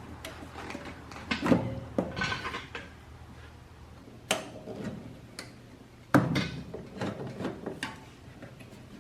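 A handful of separate knocks and clatters, like objects being handled and set down in a workshop, over a low steady hum.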